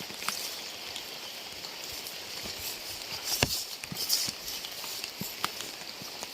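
Steady rain hissing, with irregular louder drops tapping close by; the sharpest tap comes about three and a half seconds in.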